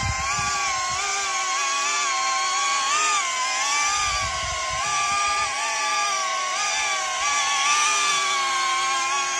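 Ducted FPV drone hovering close by: the steady, high whine of its propellers, its pitch wavering up and down as the motors keep correcting the hover.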